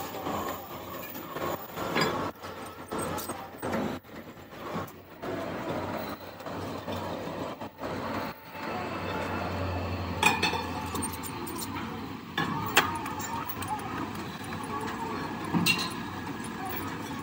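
Belt-driven lathe running while it machines a cast water pump housing, with metal scraping and rattling, and three sharp metal clinks in the second half.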